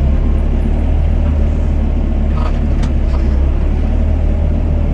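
Doosan DX55 mini excavator's diesel engine running, a loud steady low drone that comes up sharply at the start and holds.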